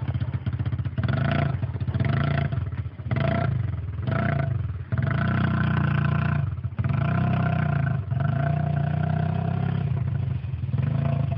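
Yamaha 80 youth ATV's small single-cylinder four-stroke engine being ridden, the throttle opened and eased off again and again so the engine note rises and drops, with short bursts at first and longer held pulls later.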